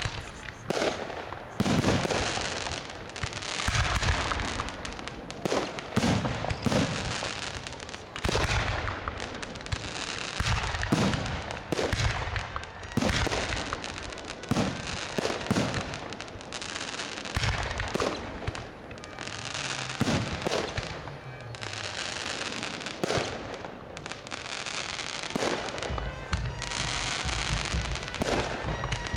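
Fireworks display: aerial shells bursting in quick succession, a dense run of bangs one after another without pause.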